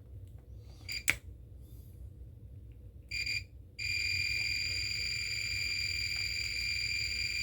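Multimeter continuity beeper: a short beep about three seconds in, then a steady high beep from about four seconds on, the sign that the probes are bridging a closed circuit between the XLR connector's pins. A click about a second in.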